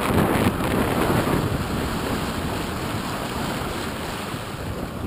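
Wind buffeting the microphone over the steady rush of water along the hull of a sailboat under way.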